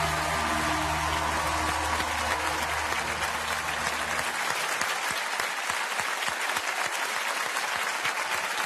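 Studio audience applauding over the band's last held chord. The chord stops about four seconds in, and the clapping carries on alone.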